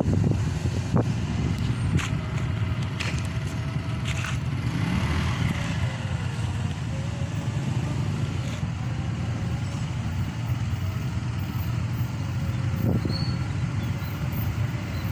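Steady low vehicle rumble with a few faint clicks.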